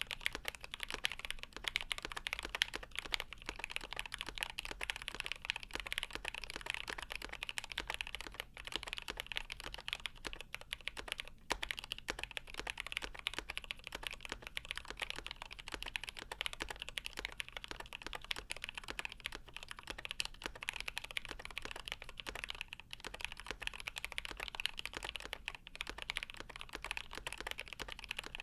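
Fast, continuous typing on a GMMK Pro mechanical keyboard with lubed milky Gateron Yellow linear switches in an aluminium plate and Geekark keycaps: a dense stream of key clacks with a couple of split-second pauses.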